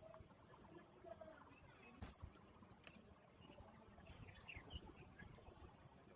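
Quiet outdoor ambience with a steady, high-pitched insect drone, a sharp click about two seconds in and a smaller one about a second later, and faint distant voices.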